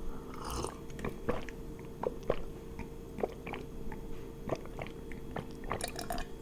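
Close-miked chewing of crunchy food, with irregular crisp crackles every half second or so, over a faint steady hum.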